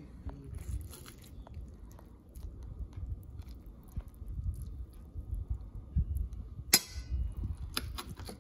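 A fork cutting through a stuffed cabbage roll and scraping on a plate, with small clicks and two sharper scrapes near the end, over a low handling rumble.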